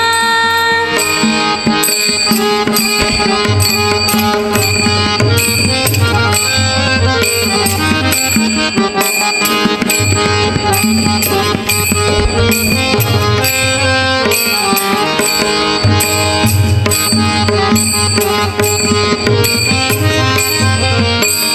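Instrumental interlude of a Marathi devotional bhajan: a held melody over drums and percussion keeping a steady beat, with no singing.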